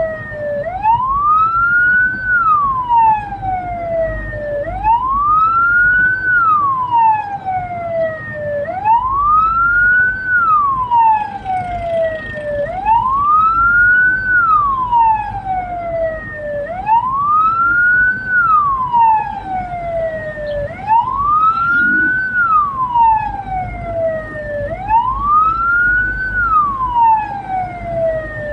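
Hearse's wailing siren: each cycle is a quick rise in pitch and then a slower fall, repeating about every four seconds, over a low rumble.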